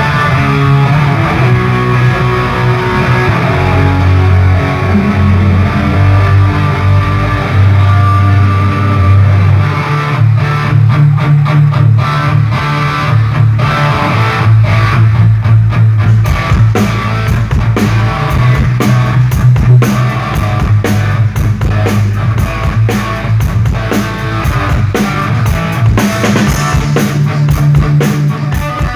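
Rock band playing during a sound check: guitars and bass, with a drum kit coming in about ten seconds in and playing on to the end.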